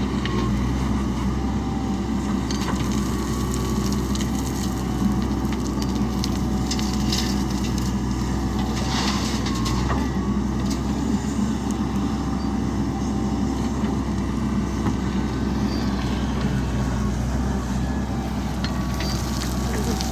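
JCB backhoe loader's diesel engine running steadily, with crunching and rattling of dirt and metal for a few seconds around the middle.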